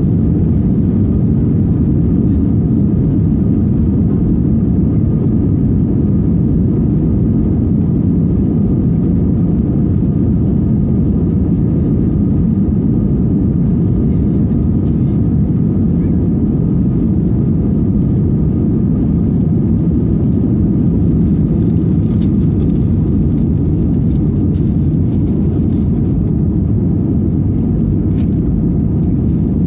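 Steady, loud drone of an airliner's engines and airflow heard inside the cabin shortly after takeoff, deep and unchanging, with a faint steady whine above it.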